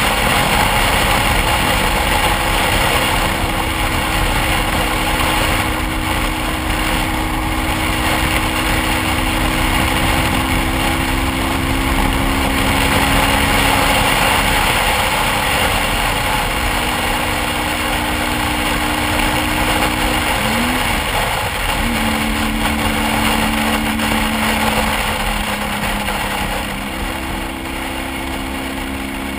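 BMW motorcycle engine running while riding, under heavy wind noise on the bike-mounted microphone. The engine note holds steady for the first half, then steps down and up several times, with one brief rising-and-falling sweep about two-thirds of the way through.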